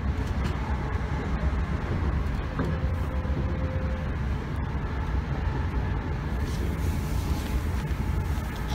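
Northern Class 321 electric multiple unit running along the line, heard from inside the carriage: a steady low rumble of wheels and running gear on the track.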